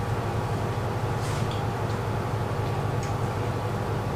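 A steady low hum, with a few faint clicks and ticks over it.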